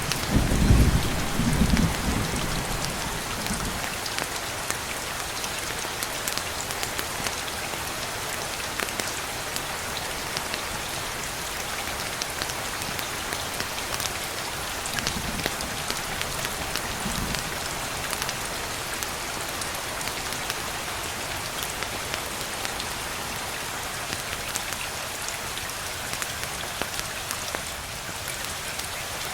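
Steady rain falling on a surface, with a rumble of thunder dying away in the first few seconds.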